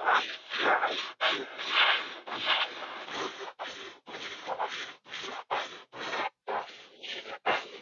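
Gravity-feed airbrush spraying paint in short stop-start bursts of hiss, about two a second, with brief gaps between them.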